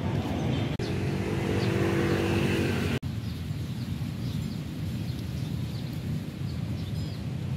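Street traffic: the engines of passing cars and motorbikes. A steadier engine hum is loudest for about two seconds and cuts off suddenly, leaving a quieter traffic rumble.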